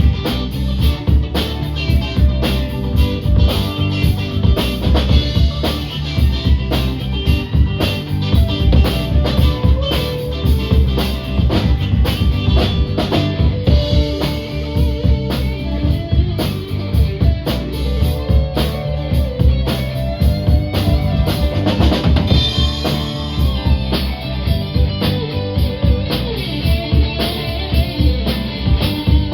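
A rock band playing with drum kit, bass and guitar: the drums keep a steady beat under a repeating guitar part.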